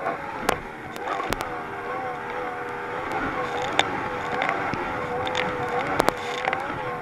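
Thundercat race boat's outboard engine running hard, its pitch dipping and recovering over and over as the boat bounces across the swell. Sharp knocks break in several times, loudest about six seconds in.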